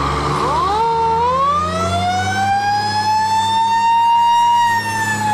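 Fire engine siren sounding one long wail: the pitch rises quickly about half a second in, holds high, then begins to fall near the end, over a steady low hum.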